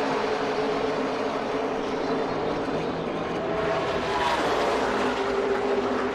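A pack of NASCAR Camping World Truck Series V8 race trucks running at full throttle on the opening lap, a steady engine drone. About four seconds in, one engine note rises in pitch.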